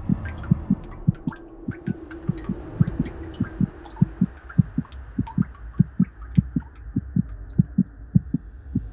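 Low thumps in a steady heartbeat rhythm, about three a second, over a low hum, with faint scattered crackles.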